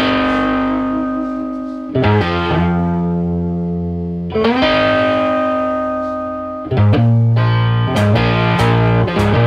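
Background music: guitar chords held and left ringing, each changing after about two seconds, with drum hits coming in about eight seconds in.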